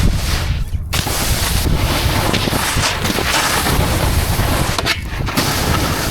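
Wind buffeting a helmet-mounted action camera's microphone while snowboarding: a loud, steady rushing with low rumble, briefly easing within the first second and again about five seconds in.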